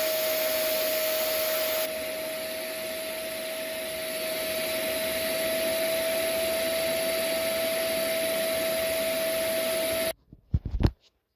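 Shark Multivac NH15 vacuum cleaner running at full power, a steady motor whine with one high tone held throughout. It cuts off suddenly about ten seconds in, followed by a couple of low thumps.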